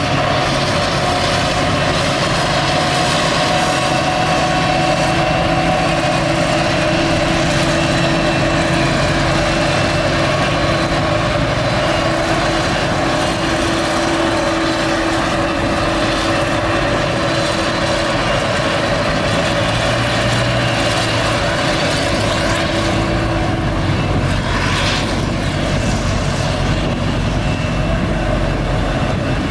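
Claas Jaguar 950 self-propelled forage harvester chopping maize under load: a steady heavy engine drone with the held whine of the chopping drum and crop blower.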